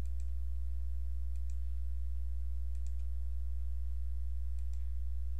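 Computer mouse clicking four times, each a quick double click of press and release, spread over a few seconds. Under them runs a steady low electrical hum, the loudest sound throughout.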